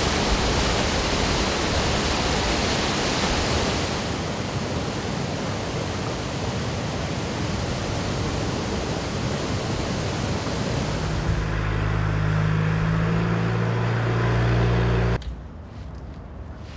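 Water rushing and churning in a loud steady torrent as it gushes through the openings of a dry-dock gate. About eleven seconds in, a low steady hum joins it; both cut off sharply near the end, leaving a much quieter background.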